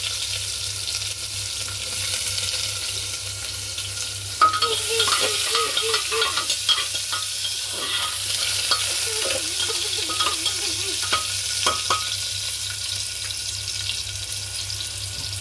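Sliced onions sizzling in hot oil with whole spices in an aluminium pressure cooker, a steady hiss throughout. From about four seconds in, a spatula stirs them, with small clicks and scraping against the pot.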